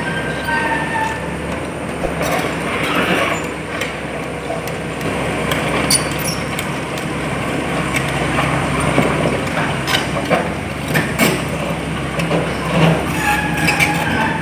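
Hitachi EX200-5 hydraulic excavator running, with a steady mechanical noise broken by scattered metallic knocks and a few short squeals.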